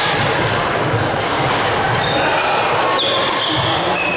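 Badminton play in a large hall: sharp racket hits on shuttlecocks and shoe squeaks on the court floor, over the steady chatter of many voices.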